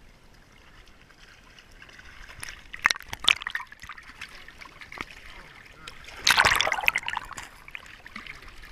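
River water splashing and sloshing right at the waterline as a hooked Dolly Varden thrashes at the surface and is handled in the water. There are a few sharp splashes about three seconds in, then a longer, louder burst of splashing a little past six seconds.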